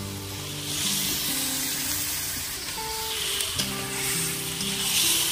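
Raw chicken sizzling as it goes into hot masala in a kadhai and is stirred in with a spatula. The sizzle starts about a second in and grows louder toward the end.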